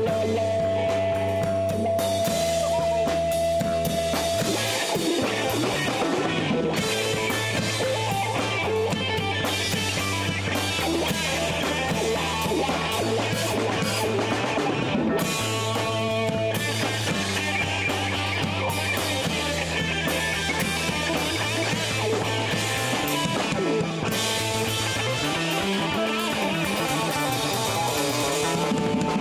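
Rock band playing electric guitar, bass and drum kit, the bass holding low notes that change every couple of seconds under a steady wash of guitar and cymbals.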